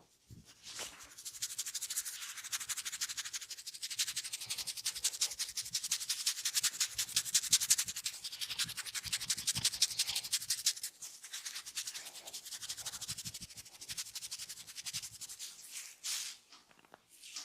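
Massage strokes: hands rubbing fast and rhythmically against skin, as a quick, even friction hiss. The rubbing eases off and grows sparser about eleven seconds in.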